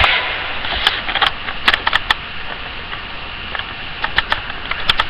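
Irregular, scattered sharp clicks and taps over a steady hiss.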